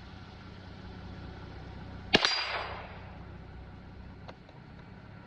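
A single shot from a Ruger Precision Rimfire .22 LR bolt-action rifle about two seconds in, a sharp crack with a short ringing tail, followed about two seconds later by a faint click.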